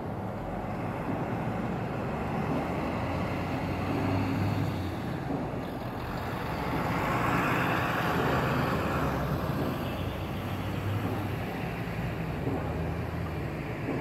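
Street traffic running steadily, with a pickup truck passing by about halfway through, its sound rising and then falling away.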